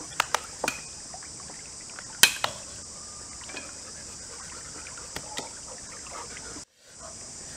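A few sharp knocks of hard objects on a rock, the loudest about two seconds in, over a steady high-pitched hiss. The sound drops out briefly near the end.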